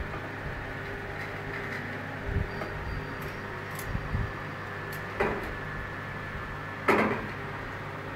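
Steady electrical hum of aquarium equipment, with a few short knocks about two, four and five seconds in and the loudest about seven seconds in.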